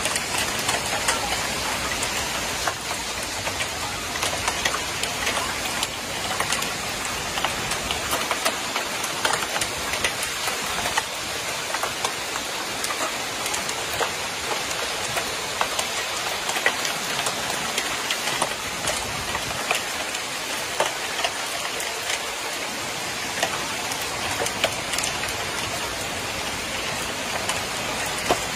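Heavy hail and rain pelting down: a dense, steady hiss studded with many sharp ticks of hailstones striking.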